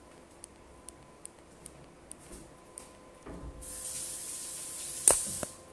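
Kitchen faucet running into the sink for about two seconds, then a sharp knock, and the water stops.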